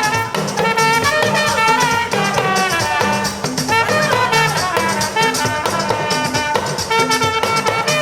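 Instrumental music: a melody of held notes moving over a steady percussion beat.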